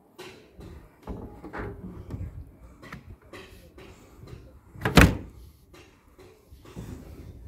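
Plastic roof skylight being shifted and pressed down into its opening on a van's metal roof: scattered handling knocks and scrapes, with one loud thump about five seconds in.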